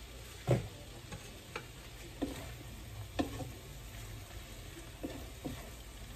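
Wooden spatula stirring chicken strips and vegetables in a frying pan, knocking and scraping against the pan every second or so over the sizzle of frying. A single louder knock comes about half a second in.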